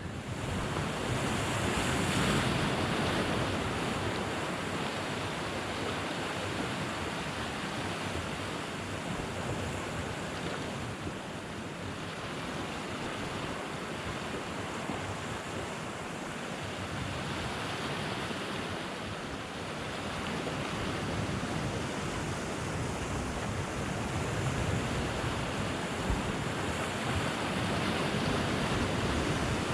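Sea waves washing on a rocky shore, with wind on the microphone; a steady rushing noise that swells and eases every few seconds.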